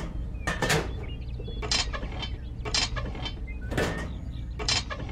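Small plastic and metal toy machine parts being handled and set down: a series of short clicks and knocks, about one a second, over a low steady hum.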